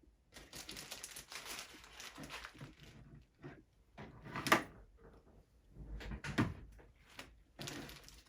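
Rustling and handling noises with a few short knocks, the sharpest about four and a half seconds in.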